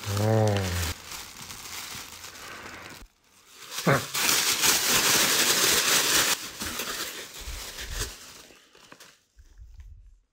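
Plastic postal satchel and tissue-paper wrapping crinkling and rustling as they are pulled open and the contents unwrapped, loudest in the middle. A short vocal sound from the person opens it.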